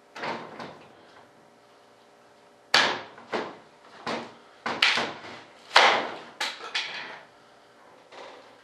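Irregular sharp knocks and clacks, about a dozen in uneven groups, from hands and tools working at a fibreglass mold to take it apart and free the moulded vertical stabiliser.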